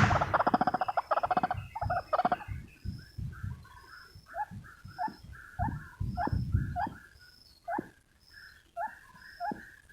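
White-breasted waterhens calling: a dense, fast run of croaking notes for the first two seconds or so, then a string of short notes about two a second, each dropping in pitch. A faint, thin high note repeats steadily behind them.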